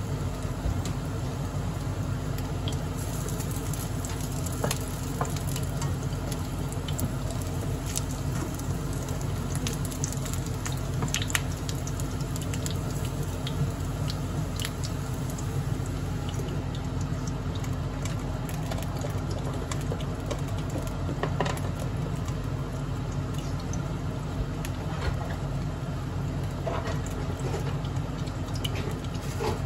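Hamburger patties sizzling in oil in a frying pan, with crackles of spattering fat and a few light knocks as a spatula turns them and the pan is covered. A steady low hum runs underneath.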